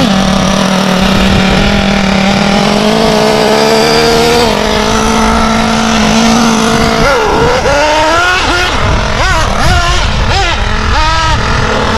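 Novarossi nitro engine of a Kyosho Inferno MP10 1/8-scale buggy running loud at a steady, high pitch for about seven seconds. Then it is revved up and down in quick rising and falling whines, once or twice a second, as the buggy drives off.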